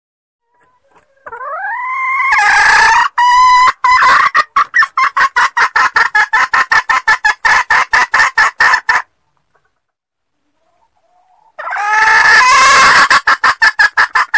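Female red junglefowl calling: a rising note that breaks into a fast run of clucks, about seven a second, lasting several seconds. After a short pause a second call begins near the end.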